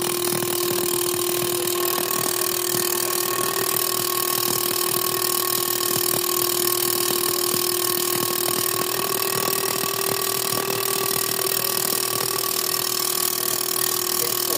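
Steady mechanical running: a constant hum with a fine, rapid ticking over it.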